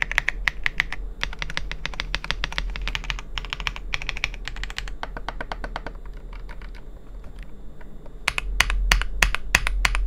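Gasket-mount mechanical keyboard with light 48 g silver switches being typed on fast, a dense run of key clacks. The typing thins out after about five seconds, then comes back louder and heavier in a quick burst of presses near the end.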